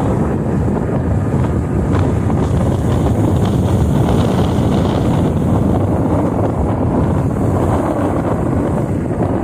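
Steady wind noise buffeting the microphone of a moving motorcycle, with the bike's running and road noise underneath.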